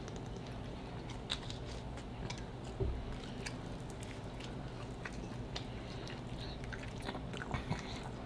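Close-miked chewing and biting of pizza slices topped with pulled pork and bacon: wet mouth smacks and small crunches scattered throughout. There is one dull thump about three seconds in.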